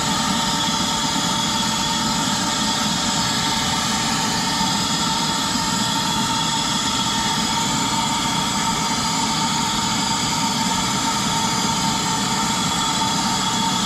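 Shop vac converted to a pond vacuum, its motor running steadily with a constant whine over a rushing hiss as it sucks up water and dirt from the pond bottom.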